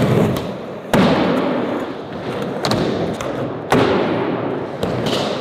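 Skateboards hitting the ground during ollies: sharp board pops and landing slaps, about four in all. Each is followed by a fading rush of wheels rolling away.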